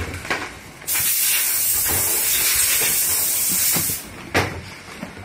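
A loud steady hiss that starts abruptly about a second in and cuts off about three seconds later, with knocks of goods being handled and dropped into a cardboard carton before and after it.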